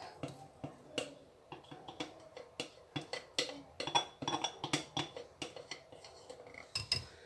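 A wire whisk clicking and tapping irregularly against a glass blender jar while it stirs thin flour-and-water batter.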